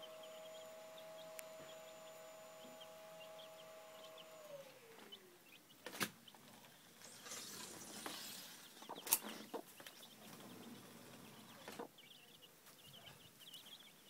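A broody hen clucking quietly with her few-days-old chicks peeping softly around her, and two sharp taps, the second the loudest sound. A steady machine hum glides down in pitch and stops about four and a half seconds in.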